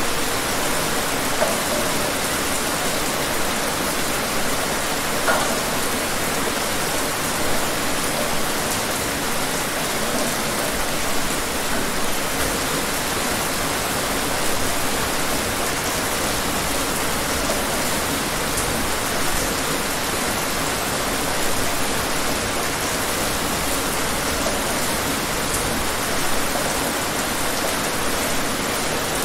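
Steady rain falling, an even hiss with occasional slightly louder drops or splashes.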